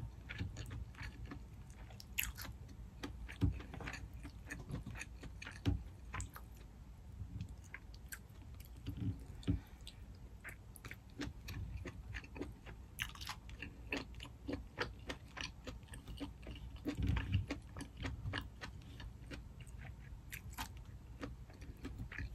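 Close-up chewing and eating sounds of saucy deshelled seafood boil eaten by hand: irregular wet clicks and smacks throughout.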